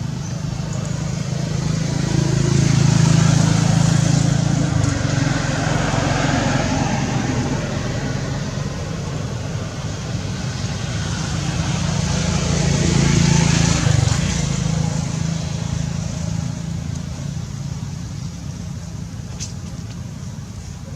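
Road traffic: a motor vehicle passes by, swelling and fading about three seconds in, and another passes about thirteen seconds in, over a steady rumble.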